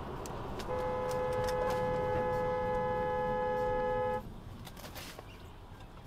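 A car horn blown in one long steady blast of about three and a half seconds, starting about a second in and cutting off suddenly, over steady road noise from the moving car.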